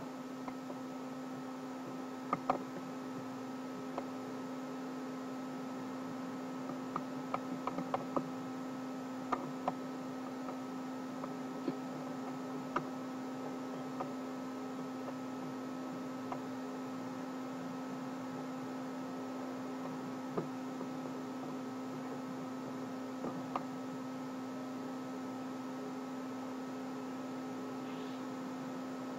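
Steady electrical hum with scattered light mouse clicks, most of them in the first half.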